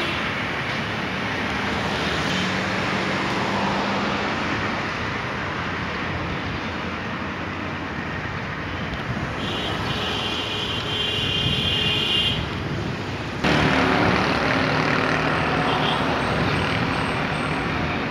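Road traffic noise heard from a moving vehicle: a steady rush of engines, tyres and wind, with a motorcycle riding close alongside. A high steady tone sounds for a few seconds near the middle, and the noise steps up suddenly about two-thirds of the way through.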